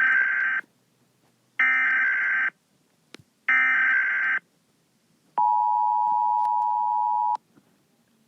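Emergency Alert System tones: three bursts of SAME digital header data, each just under a second long and about two seconds apart, then the two-tone EAS attention signal held steady for about two seconds before cutting off. A faint click falls between the second and third bursts.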